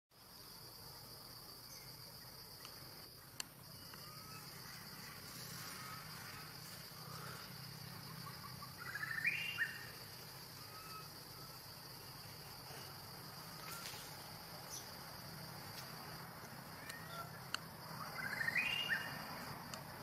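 Forest ambience: a steady, high-pitched insect drone, with two short bursts of rising animal calls, about nine seconds in and again near the end.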